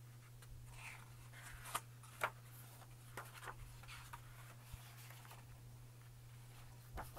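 Faint rustling and a few short crisp ticks of thick book pages being handled and turned by hand, over a steady low hum.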